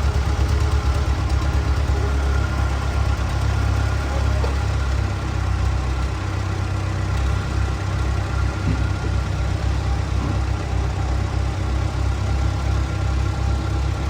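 An engine idling steadily, with a fast low chugging pulse.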